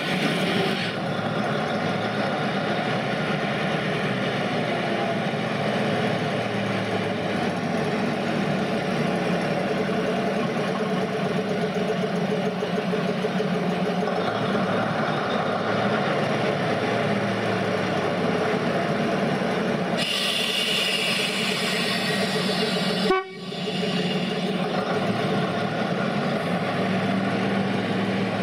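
Class 03 diesel shunter's Gardner eight-cylinder diesel engine running steadily as the locomotive moves slowly along the line. A hiss is heard for a few seconds about two-thirds of the way through, followed by a sharp click and a brief dropout.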